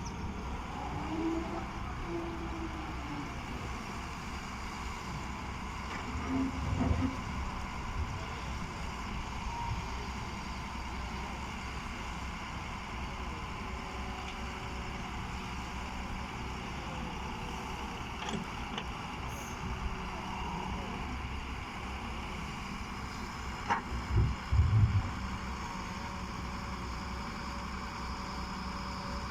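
Heavy diesel engine of a working Doosan excavator running steadily, with louder low thumps about seven seconds in and again near twenty-five seconds.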